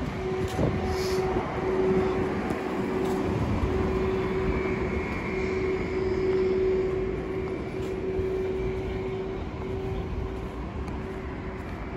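Road traffic noise with a steady machine hum that holds one pitch throughout.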